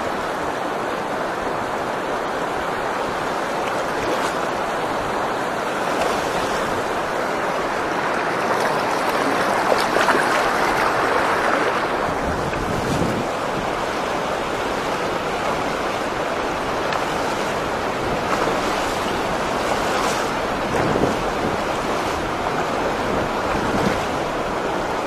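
Fast river current rushing over rocky rapids, a steady noise of water, with wind gusting on the microphone now and then.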